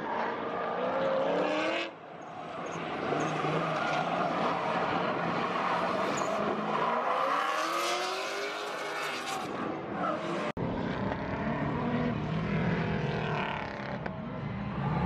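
Drift cars' engines revving, rising and falling in pitch as they slide sideways through the corners in tandem, over tyre and track noise. The sound cuts off abruptly twice, and after the second cut a steadier, lower engine drone carries on.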